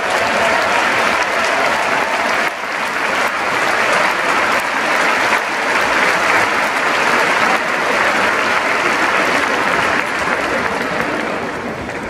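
Large concert-hall audience applauding, a dense steady clapping that thins out and grows quieter near the end.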